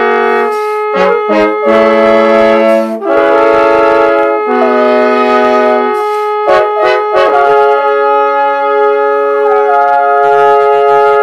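Trombone quartet, four parts played by one trombonist and layered, playing sustained chords. The chords change in short steps during the first few seconds, then from about seven seconds in the piece settles on one long held chord.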